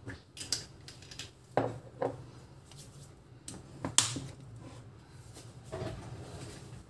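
Light clicks and knocks of containers handled on a kitchen counter, a handful scattered over several seconds. The sharpest, about four seconds in, is the plastic flip-top cap of a sea salt canister snapping open.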